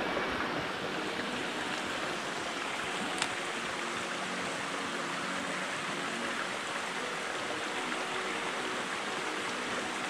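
Water spilling over a concrete check dam in several thin falls into the pool below: a steady rushing, with one brief click about three seconds in.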